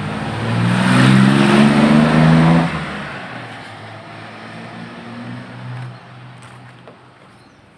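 Motor vehicle engine revving up, its pitch climbing, loudest from about one to nearly three seconds in, then falling away quickly. A fainter engine note is heard again around five to six seconds in.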